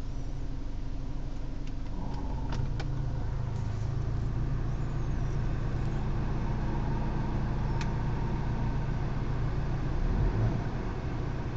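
BMW E90 320i four-cylinder petrol engine running with the A/C off. About two seconds in the hum strengthens and holds, with a faint whine joining it, then eases about ten seconds in. This is the noise the owner hears at around 1,000 rpm without A/C, which goes away with the A/C on; its cause is unknown.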